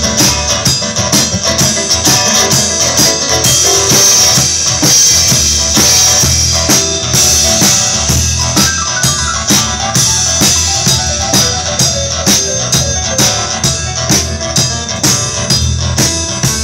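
Blues-rock instrumental break: a Yamaha electronic keyboard played over a steady drum beat, with no vocals.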